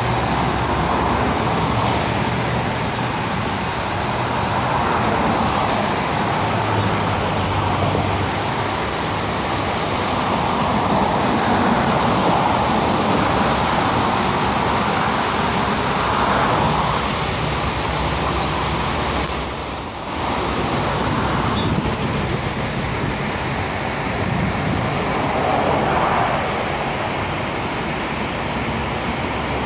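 Road traffic on a riverside drive, a steady rushing noise with cars swelling past now and then, mixed with the rush of river water pouring over a low dam.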